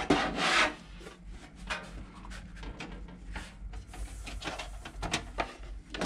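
Handling noises as the computer case and its cables are moved and set up: irregular rubbing and scraping with scattered knocks, loudest in the first second.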